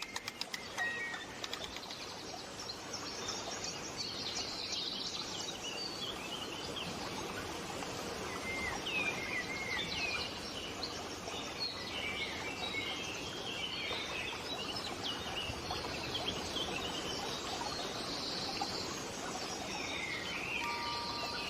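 A chorus of small songbirds chirping and twittering in quick, overlapping calls over a steady background hiss of outdoor ambience.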